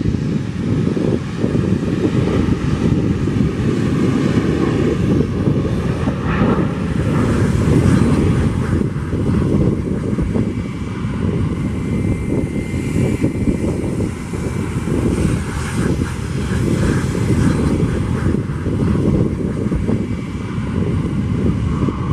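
McDonnell Douglas MD-83's two Pratt & Whitney JT8D-219 turbofans at takeoff power as the jet rolls, lifts off and climbs away: a loud, steady jet noise with a faint whine, mixed with wind buffeting on the microphone.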